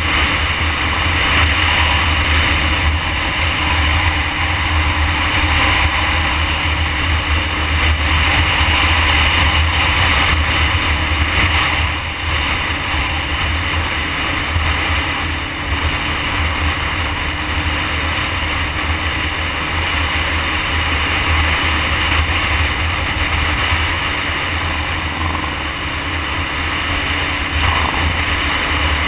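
Motorcycle riding steadily at road speed, with heavy wind rumble on the bike-mounted camera's microphone over the engine and road noise.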